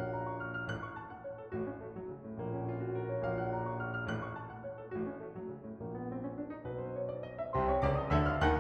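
Background piano music: slow, sustained notes that build in fullness near the end.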